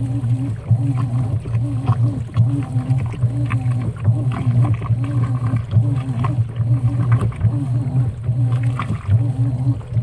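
Top-load washing machine agitating a load of wet towels: a steady low motor hum that surges and dips about once a second with each agitation stroke, with swishing and sloshing of the towels and water.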